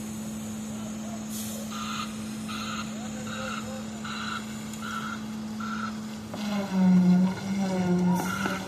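A vehicle's reversing alarm beeping evenly, about one and a half beeps a second, over the steady hum of a running diesel engine. Near the end a louder sound with a wavering pitch cuts across it.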